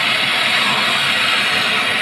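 Electric arc welding: the welding arc crackling and hissing steadily, without a break.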